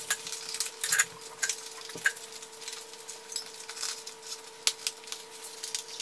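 Scattered clicks and light knocks as a knobby Maxxis DHR II tire is handled and worked by hand onto a 27.5-inch rim with a CushCore foam insert inside. A faint steady hum runs underneath.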